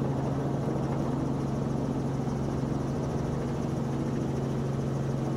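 Robinson R44 helicopter's rotor and piston engine running at a steady low drone as it lifts off and climbs away from the pad.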